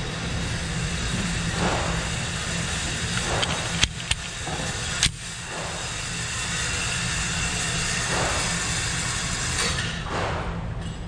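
Steady rumbling air-handling noise of an indoor shooting range with a low hum, broken by three short, sharp cracks about four and five seconds in.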